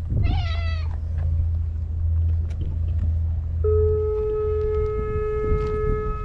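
A cat gives one short meow, falling in pitch, right at the start. About three and a half seconds in, a long, steady, single-pitched horn or siren tone starts suddenly and holds, over low wind rumble on the microphone.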